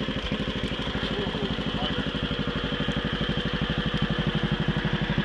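Allen Roper RT13 garden tractor engine running as the tractor is driven through rough, overgrown ground. It keeps an even, rapid pulse of about ten beats a second and gets slightly louder near the end.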